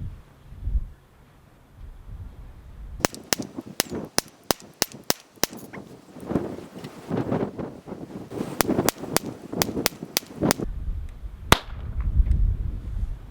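Taurus TX22 .22 LR pistol firing Remington Thunderbolt rounds at a quick, even semi-auto pace: a string of about ten shots starting about three seconds in, a second string of about eight, then one last shot. It fires without a stoppage.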